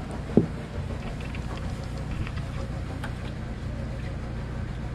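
Steady low hum of boat machinery, with one sharp click about half a second in.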